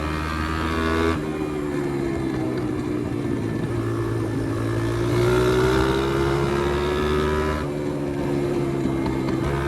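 Pit bike's small single-cylinder engine running under throttle, its pitch rising and falling, with sudden changes about a second in and again near the end.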